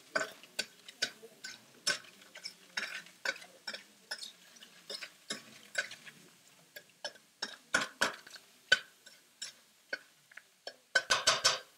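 A utensil stirring food in a stainless steel pan, clicking and tapping against the metal in irregular strokes, with a quick flurry of taps near the end.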